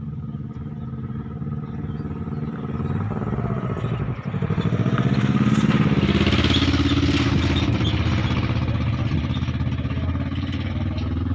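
Fully loaded Tata tipper truck's diesel engine running, revving up about four seconds in and held at high revs while its tipping body is raised.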